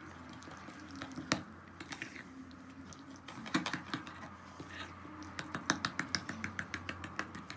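A metal spoon stirs a thick poppy-seed, sugar and oil paste in a ribbed glass bowl, clicking against the glass. The clicks come scattered at first, then quicker, about four or five a second, in the last couple of seconds. A faint low hum runs underneath.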